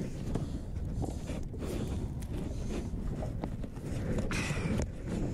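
Wind buffeting the microphone, with scattered knocks and footsteps as someone steps from a small bass boat onto a floating dock. A brief rustling noise comes about four seconds in.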